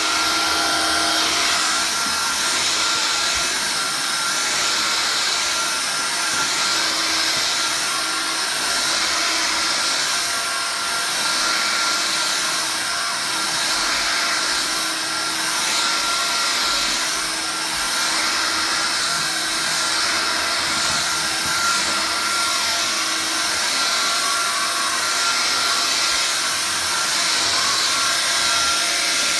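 Vax Air Cordless Lift cordless upright vacuum cleaner running continuously: a steady rush of air with a steady motor whine.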